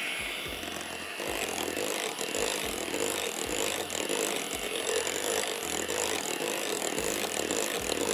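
Electric hand mixer running steadily, its twin beaters whirring through cake batter as flour and baking powder are beaten in.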